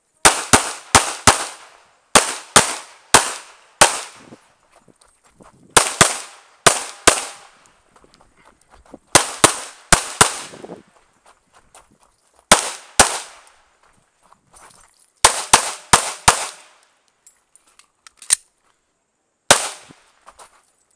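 Glock 17 9mm pistol fired during a timed stage run: about two dozen sharp shots in quick pairs and strings of three or four, with pauses of one to two seconds between groups as the shooter moves to the next position.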